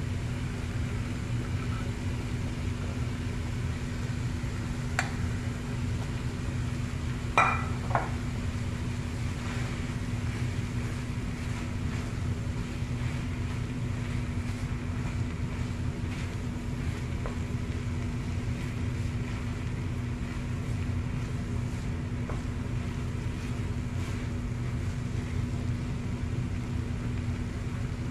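A wooden spatula stirs minced meat and peas in a frying pan over a steady low hum, with sharp knocks against the pan about five and seven and a half seconds in.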